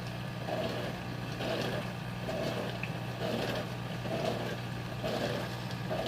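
Portable dishwasher running its first wash cycle: a steady motor hum with water swishing inside about once a second.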